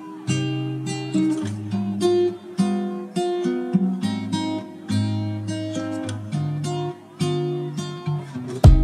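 Background music of acoustic guitar playing a melody of separate plucked notes, turning louder and more percussive right at the end.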